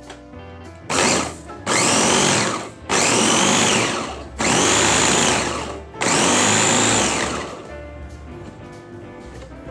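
Electric meat chopper with a stainless steel bowl and four-wing blade run in five short pulses, grinding minced meat. Each pulse is a loud whine that rises as the motor spins up and falls as it slows, and the pulses stop a couple of seconds before the end.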